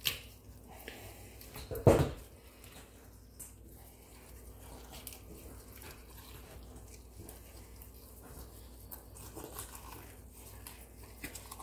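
Tin snips crunching through a bass's backbone, with one loud sharp snap about two seconds in. Then faint wet squishing and rustling as gloved hands work the fish's body loose inside the skin.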